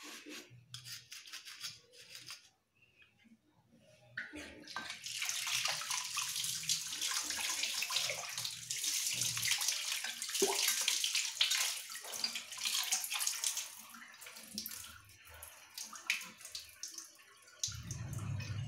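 A scouring pad scrubbing a silver oil lamp in short scratchy strokes. About four seconds in, a kitchen tap starts running as the lamp is rinsed under it. The water hisses steadily for several seconds, then thins out, with a few knocks of metal.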